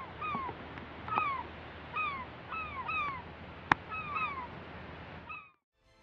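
Gulls calling: repeated short, falling, cat-like mewing calls, roughly two a second, over a steady hiss. There is one sharp click a little past halfway, and the sound cuts off abruptly just before the end.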